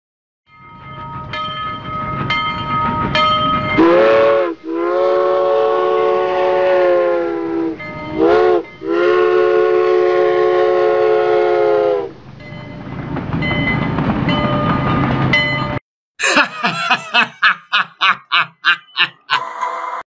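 Railroad locomotive's multi-note air horn sounding four times over the rumble of a train: a brief blast, a long one, a brief one, then another long one. After a sudden break near the end, a fast rhythmic clatter at about three beats a second.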